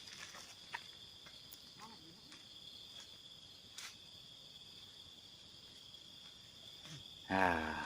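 Crickets trilling steadily at night in a continuous high tone, with a couple of faint clicks. A person's voice comes in briefly near the end.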